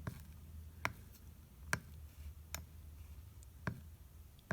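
Light sharp ticks, about one a second and not quite evenly spaced, over a faint steady low hum, as a soldering iron touches down on the copper-foiled seams of a stained glass panel while solder is worked and touched up.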